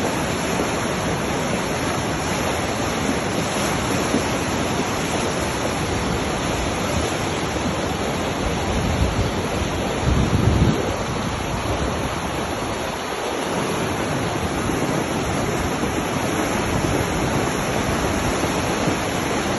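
Swat River rushing through rapids: a steady, dense roar of whitewater. A brief low rumble swells about ten seconds in.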